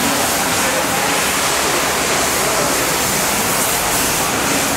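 High-pressure water jet of a pressure washer hissing steadily as it sprays the tiled floor.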